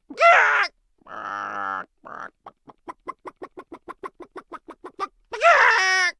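Chickens calling: a loud squawk falling in pitch near the start, a drawn-out call after it, then a run of quick short clucks, about five a second, and another loud squawk near the end.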